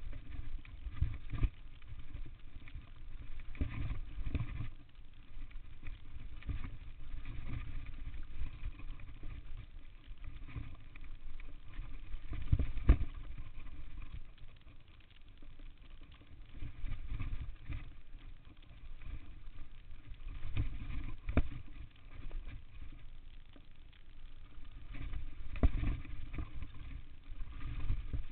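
Downhill mountain bike ridden fast over a dry dirt trail: low wind rumble and the rattle of the bike, rising and falling with the terrain, with sharp knocks from bumps, the loudest about halfway through.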